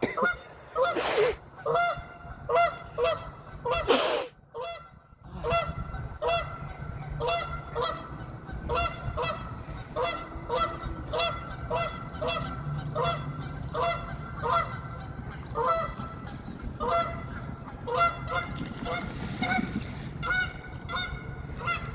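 Geese honking over and over, short calls coming about twice a second, with two brief loud bursts of noise in the first few seconds.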